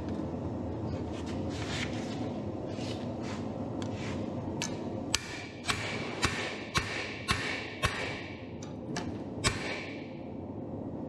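Hammer blows on red-hot steel pressed onto a grooved texturing tool on the anvil. Lighter strikes come first, then about seven heavy blows roughly two a second, each leaving a brief metallic ring. A steady rushing noise runs underneath.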